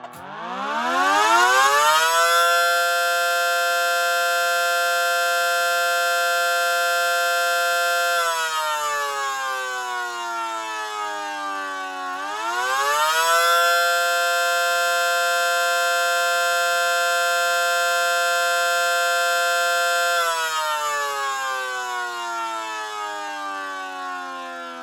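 Mechanical siren sounding the attack signal under FSK radio activation: the rotor spins up to a steady high tone, holds it for about five seconds and winds down. About twelve seconds in it spins up and holds again, then winds down near the end.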